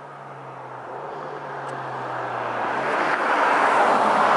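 Turbocharged Alfa Romeo Giulia with an aftermarket air intake approaching along the road, its engine and tyre noise growing steadily louder as it nears.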